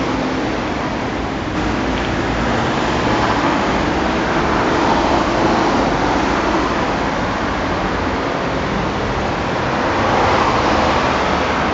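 A steady, dense rushing noise, swelling a little about five seconds in and again near the end.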